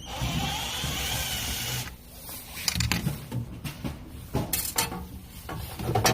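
Cordless electric screwdriver running for about two seconds as it backs out a screw holding a vending machine's infrared sensor, followed by scattered clicks and knocks of the screw and metal parts being handled.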